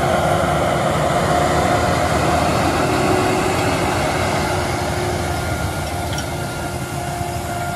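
CLAAS Axion 930 Terra Trac tractor working under load as it pulls a no-till seed drill through heavy wheat straw: a steady engine and track rumble with a thin whine that fades in and out.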